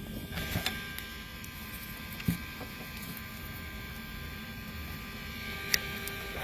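Steady low background hum and hiss with faint steady tones and a few light clicks; no music playing.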